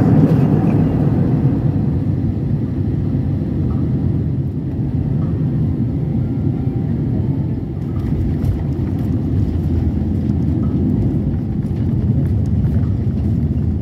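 Steady low rumble of engine and airflow noise heard inside an airliner's cabin during landing. Faint ticks and rattles come in from about halfway through, as the plane runs along the runway.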